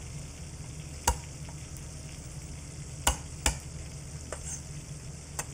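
Large kitchen knife knocking on a wooden cutting board while smashing and roughly chopping garlic cloves: four sharp knocks, two of them close together about three seconds in. Underneath, a steady sizzle of chicken browning in a pan.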